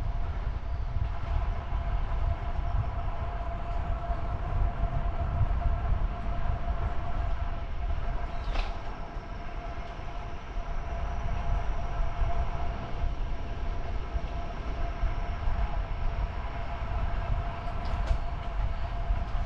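Wind rumbling on the microphone over steady road noise with a constant hum of several tones, as from a moving road bicycle; a couple of brief clicks stand out.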